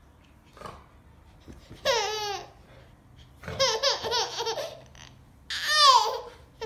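Baby laughing in three high-pitched bouts: a short squeal about two seconds in, a stuttering laugh around the middle, and a loud falling squeal near the end.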